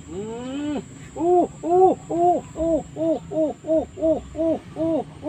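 A pitched call that rises once, then repeats as a steady run of arched hooting notes, about three a second.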